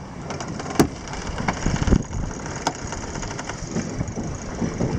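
Wind and water rushing past a sailing yacht under way, with two sharp clicks, one just under a second in and another near three seconds in.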